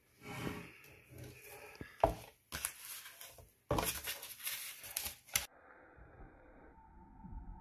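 Cardboard and paper target being handled at close range: rustling and scraping, with a sharp knock about two seconds in. About two-thirds of the way through, the handling stops suddenly and gives way to a faint low hum.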